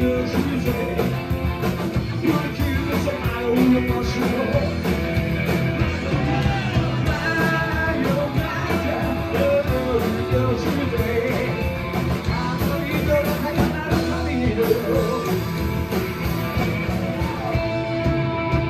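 Live rock and roll band playing: upright bass, electric guitars and drums, with a singing voice.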